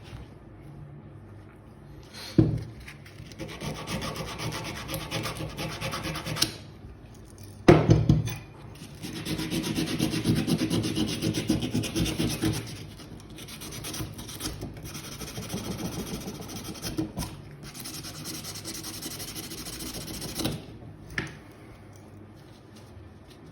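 Coarse 80-grit sandpaper rubbed by hand over a rusty metal hand tool, rasping in fast strokes in three long stretches, taking off the rust. Two sharp knocks, one near the start of the first stretch and a louder one before the second.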